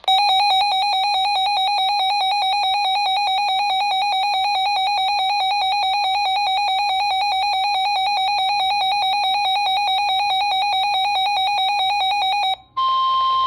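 A weather alert radio's built-in alarm beeping rapidly and shrilly as it picks up a severe thunderstorm warning; it cuts off near the end, and the broadcast's steady warning alarm tone begins.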